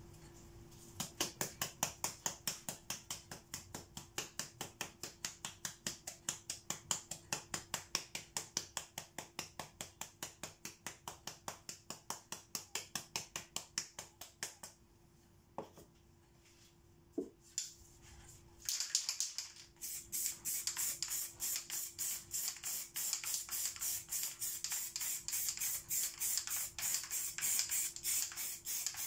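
Aerosol spray-paint can shaken hard, its mixing ball rattling about four to five times a second. About halfway through it goes quiet, and then the paint is sprayed in quick, pulsing hisses.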